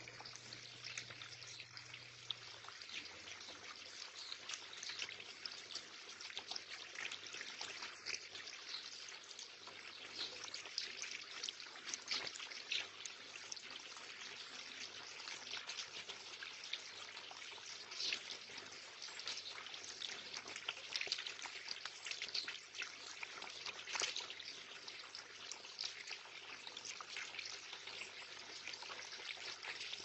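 Water trickling steadily into a small garden pond, with short splashes from a common blackbird bathing in it.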